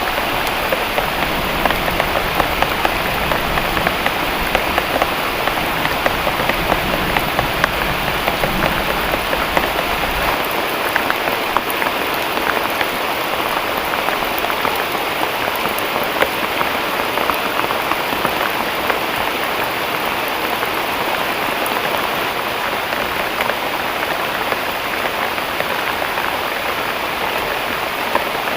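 Heavy rain falling steadily, with many individual drops ticking sharply on a nearby surface. A low rumble runs underneath for roughly the first ten seconds, then stops.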